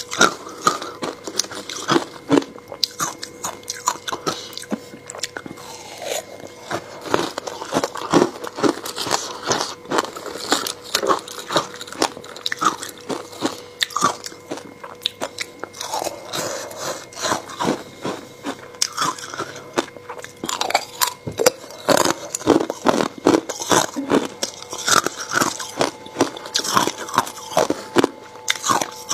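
Hard frozen flavoured ice pieces bitten and crunched close to the microphones: a dense run of sharp crunches with short pauses between bites as the ice is chewed.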